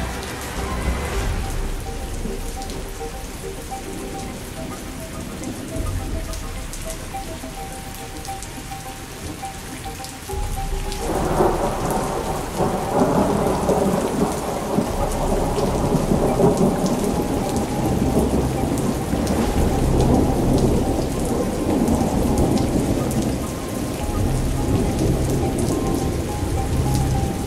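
Thunderstorm: steady rain with rolling thunder. A loud, long rumble of thunder sets in about eleven seconds in and keeps going.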